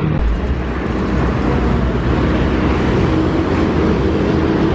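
A heavy road vehicle's engine running with a deep, steady rumble. A faint steady tone comes in during the second half.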